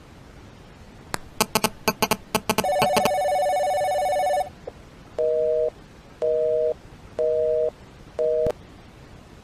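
Telephone sounds: a quick run of keypad dialing tones, a held tone, then four short beeps about a second apart, the last cut off with a click.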